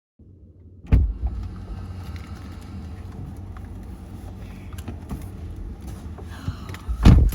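Low, steady rumble of a car interior, with a loud thump about a second in and another near the end.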